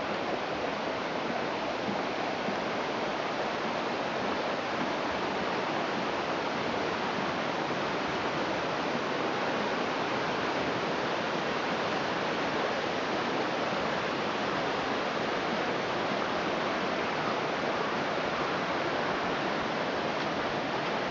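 Mountain stream rushing over rocks, a steady, even roar of water.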